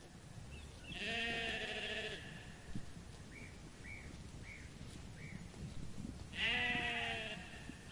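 Sheep bleating twice, each call about a second long and wavering.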